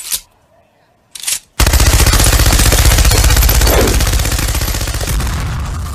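Machine gun sound effect firing one long rapid burst, starting about a second and a half in and slowly fading toward the end, after a couple of short noise bursts.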